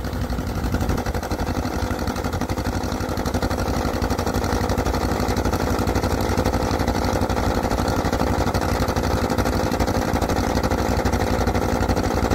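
Small tractor's engine running steadily after starting, a fast even putter with no change in speed.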